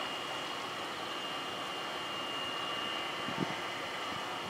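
EA-6B Prowler's twin J52 turbojets running at taxi power: a steady jet hiss with a thin high whine, and one brief low thump about three and a half seconds in.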